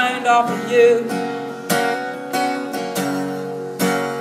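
Acoustic guitar strummed live: steady chords, a fresh strum about every two-thirds of a second, with the notes ringing on between strums.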